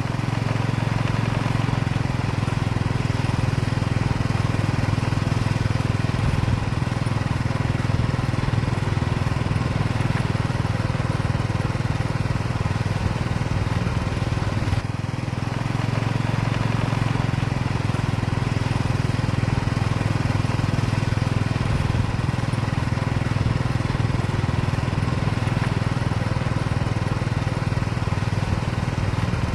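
Engine of heavy construction machinery running steadily with a low, continuous drone, dipping briefly about halfway through.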